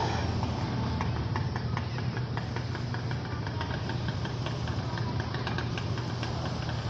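A motor running steadily with a low hum, with many light irregular clicks and ticks over it.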